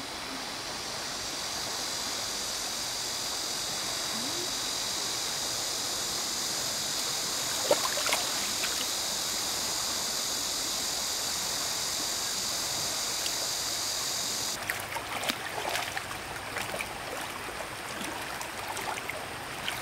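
Stream water running steadily, with a steady high-pitched buzz over it that cuts off suddenly about 15 seconds in; after that, scattered short knocks and splashes.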